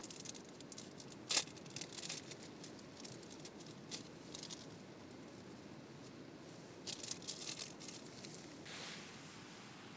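A small foil-and-plastic sachet being handled, torn open and crinkled, with scattered crackles and a cluster of crinkling about seven seconds in. A soft rush near the end as the contents are poured into a silicone cup.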